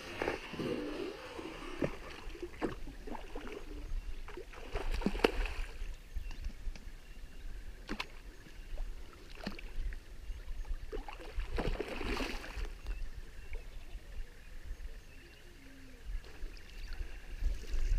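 Hooked sharptooth catfish thrashing at the water's surface on the line, a series of irregular splashes and sloshes.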